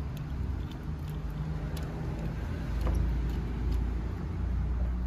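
Low rumble of wind buffeting the microphone, with a few light clicks from a brass hose fitting being twisted onto an AC manifold gauge set's low-pressure quick coupler.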